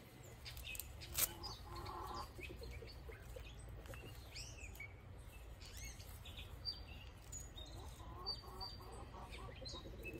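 Chickens clucking softly, with small birds chirping here and there, and a sharp click about a second in.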